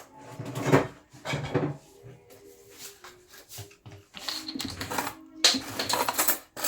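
Irregular clattering and handling of kitchen containers and utensils while seasonings are added to a marinade bowl, in a few separate bursts, over faint background music.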